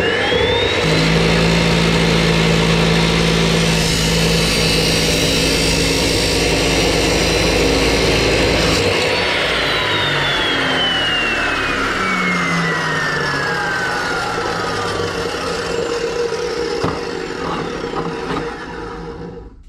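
Yato cut-off saw for metal spinning up and grinding through a square steel tube with its cutting disc, throwing sparks. About nine seconds in the load drops and the motor winds down with a falling whine, followed by a few clicks near the end.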